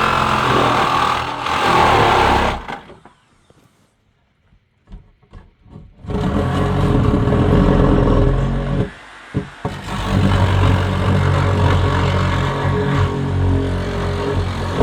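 An engine running steadily. It drops out for about three seconds a few seconds in, then comes back and runs on.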